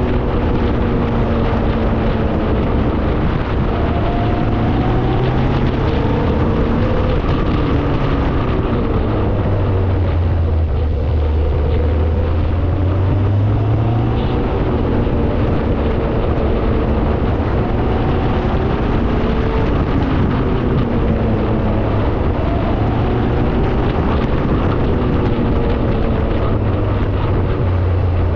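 Hillman Imp's rear-mounted four-cylinder engine running steadily as the car drives along, with road noise. The engine note drops for a few seconds near the middle, then rises again as the revs come back up.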